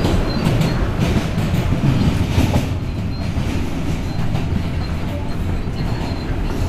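R160A-2 subway car running on the rails, heard from inside the car: a loud, steady low rumble of wheels and running gear with scattered clicks from the track, more of them in the first half.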